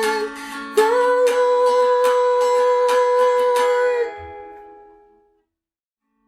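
End of a song: a singer holds one long final note over strummed ukulele-like chords. Both die away to silence about five seconds in.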